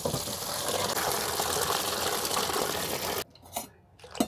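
Water running from a kitchen tap, filling a container. It shuts off abruptly about three seconds in, followed by a couple of small knocks.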